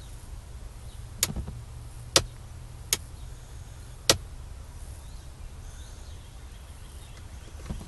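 Four sharp clicks, a second or so apart, over a steady low rumble.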